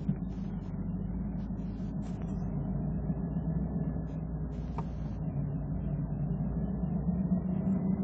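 Cabin sound of a Mazda RX-7 FD rolling at low speed: its 13B twin-rotor rotary engine gives a steady low hum. Two short clicks come from around the car, one right at the start and one about five seconds in.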